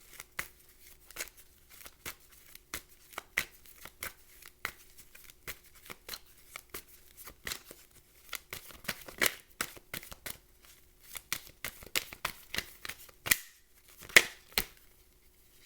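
Tarot cards being shuffled and handled: an uneven run of quick card snaps and rustles, with a brief pause and then the loudest snap a little after halfway.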